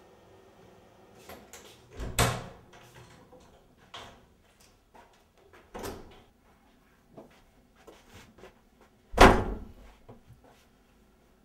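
A series of separate knocks and thuds, the loudest two about seven seconds apart, with quieter knocks between them.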